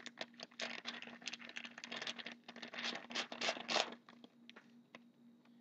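Plastic wrapper of a hockey card pack crinkling and rustling as it is worked open in the hands: a quick run of crackles that dies away about four seconds in.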